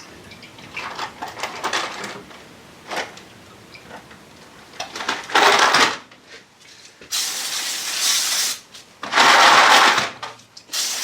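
Aerosol lubricant sprayed onto freshly de-rusted steel bolts in three long hissing bursts, the first about five seconds in and a fourth starting at the very end, so the bolts don't flash rust. Before the spraying, light clinks and rattles of the bolts being handled.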